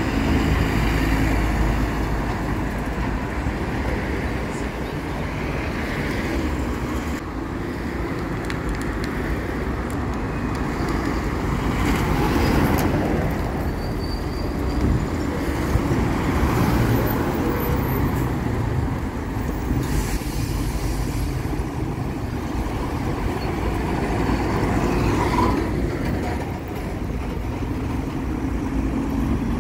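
City street traffic: buses and cars passing in a steady stream of engine and tyre noise, swelling and easing as vehicles go by.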